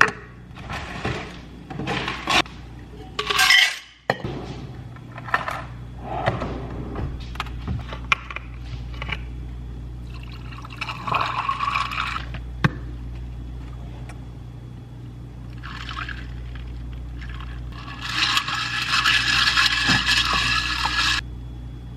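Iced coffee and creamer poured into a glass, in several pours, the longest lasting about three seconds near the end, between clinks and knocks of cups and utensils being handled.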